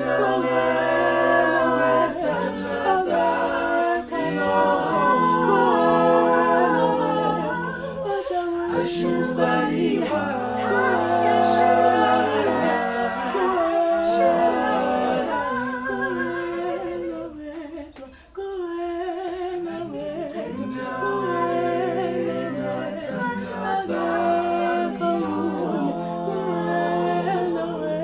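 A cappella vocal group of men and women singing in close harmony, with a low bass voice held under the chords. The singing dips briefly about two-thirds of the way through, then resumes.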